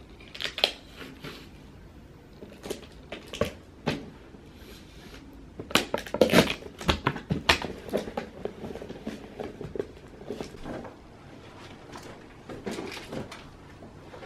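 Packing small cardboard boxes by hand with a roll of packing tape: a string of short knocks, rustles and clicks, busiest from about six to eight seconds in.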